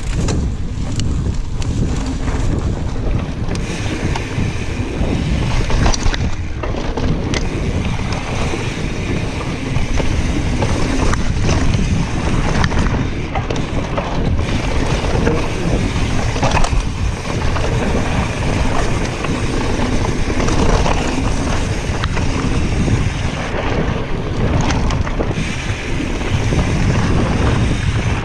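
Wind rushing over the microphone of a mountain bike descending a dirt singletrack, with the rumble of the tyres and many short knocks and rattles from the bike over bumps.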